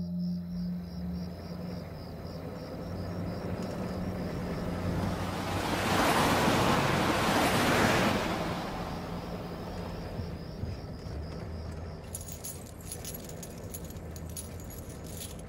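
Old motor truck's engine running with a steady low hum, swelling into a loud rushing pass in the middle. Near the end, the metal chains of handcuffs start rattling and jangling with the truck's motion.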